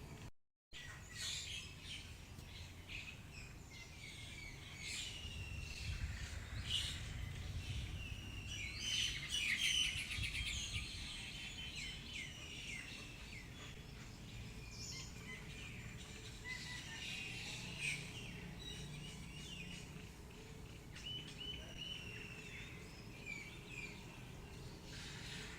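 Several wild birds chirping and calling, with short whistled notes and trills that crowd together about a third of the way in, over a low rumble of wind. The sound drops out for a moment just after the start.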